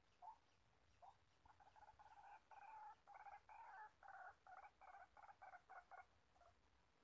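White-breasted waterhen calling faintly: a few single notes, then from about a second and a half in a long run of repeated calls that come quicker and quicker before stopping about six seconds in.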